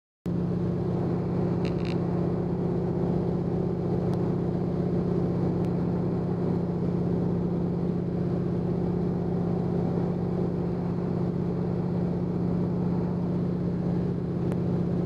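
Single-engine bush plane's engine and propeller droning steadily in flight, heard inside the cabin, with a strong low hum; it cuts in abruptly just after the start.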